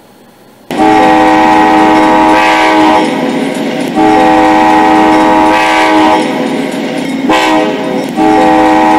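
Recorded diesel locomotive air horn sounding a grade-crossing signal: two long blasts, a short one, then the start of a final long one. Each blast is a chord of several steady notes, with the rumble of the train going on under the gaps.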